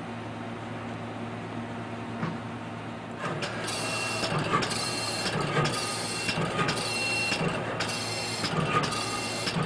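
Camalot automated dispensing machine running: a steady low hum, then from about three seconds in the gantry head moving in quick repeated strokes, roughly one a second, each with a short high whine and a low knock, as it steps from square to square dispensing.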